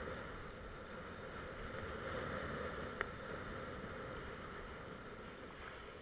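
Steady rush of wind on the microphone and water hissing past a kiteboard skimming over choppy sea, with a single sharp click about three seconds in.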